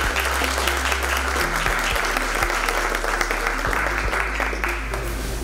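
Audience applauding: a dense patter of many hands clapping that fades out near the end.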